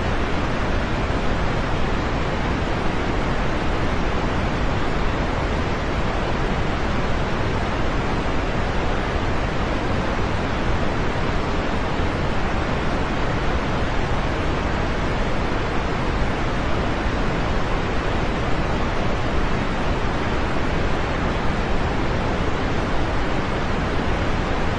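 Steady rain, a dense even hiss with no separate drops, changes or thunder standing out.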